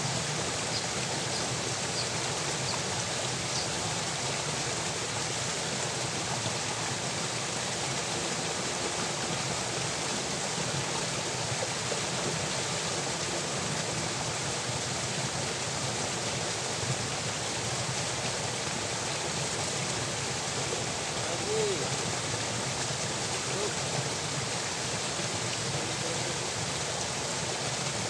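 Steady rush of water pouring out of a concrete culvert into an irrigation channel.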